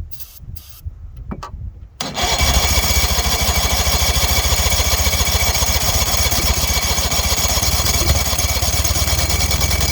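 1977 Evinrude 35 hp two-stroke, two-cylinder outboard motor turning over with a steady, rapid even beat, starting suddenly about two seconds in and stopping abruptly about eight seconds later, on a motor that won't start.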